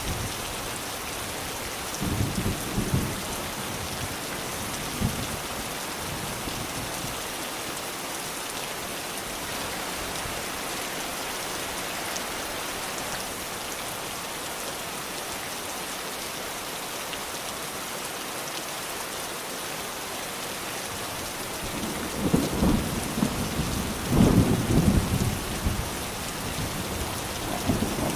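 Steady heavy rain falling, with low rumbles of thunder about two seconds in and a longer, louder roll of thunder near the end.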